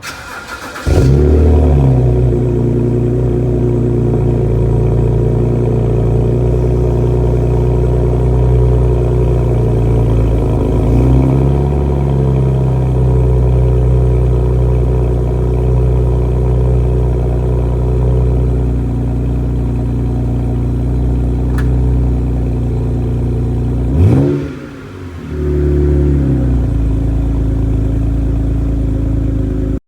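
BMW 128i's 3.0-litre inline-six running through a muffler-deleted axle-back exhaust. It starts up about a second in with a brief flare, then settles to a steady idle. About 24 seconds in the engine note sweeps and drops away for a moment, then comes back to idle.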